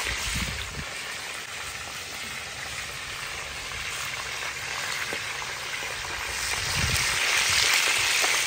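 Whole mojarras deep-frying in hot oil in a large steel disc pan over a wood fire, sizzling steadily and growing louder near the end.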